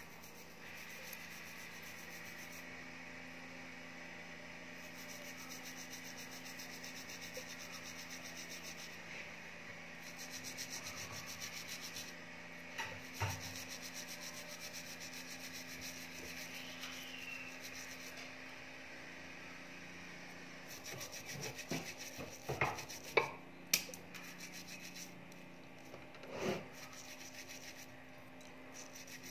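Fingers handling a small earring piece, making faint rubbing and handling noise over a steady low hum, with a few sharp clicks, most of them in a cluster about three-quarters through.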